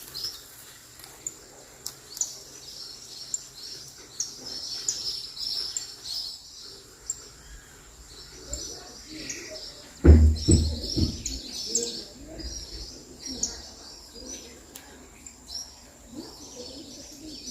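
Songbirds chirping and singing in quick, high notes, many calls overlapping. About ten seconds in, a few loud, low thumps.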